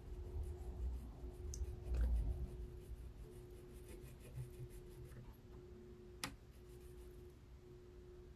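Faint scraping and handling noises of work at a repair bench, with low bumps in the first couple of seconds and one sharp click about six seconds in, over a faint steady hum.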